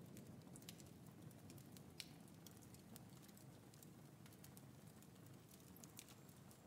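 Near silence: a faint low hum with scattered soft ticks and clicks at irregular intervals.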